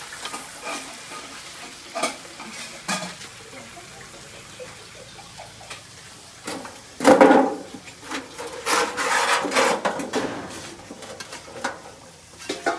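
Chicken sizzling in a metal karahi over a wood fire while a metal spoon stirs it. There are a few light spoon knocks at first, then louder scraping and clattering of the spoon against the pan in the second half, loudest about seven seconds in.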